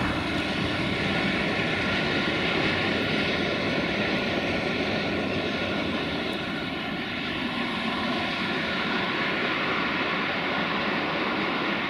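Sulzer-engined 060-DA diesel-electric locomotive running with a steady engine drone as it approaches hauling a train of tank wagons.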